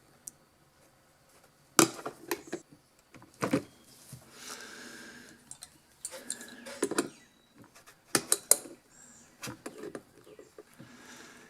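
Needle-nose pliers clicking and knocking against a strain relief bushing as it is squeezed and pulled to work it out of a space heater's cord opening: a scatter of sharp clicks, a cluster of them about eight seconds in.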